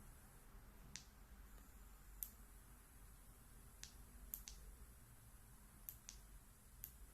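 Faint sharp ticks, about eight at irregular intervals, over a low steady rumble.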